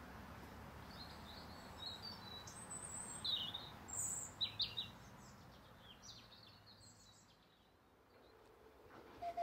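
Small birds chirping in short, high calls over a faint low rumble, with a louder cluster of chirps a few seconds in; the birdsong fades out near the end.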